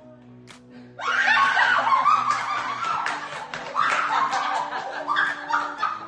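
A person laughing hard, starting about a second in and carrying on in bursts, over quiet background music.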